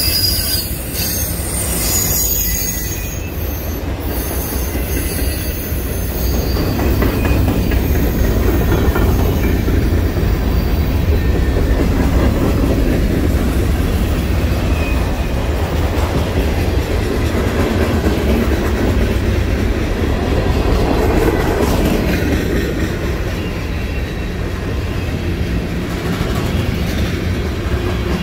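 Freight cars (autoracks, covered hoppers and tank cars) rolling past close by: a steady heavy rumble of steel wheels on rail, with thin, high wheel squeal in the first few seconds.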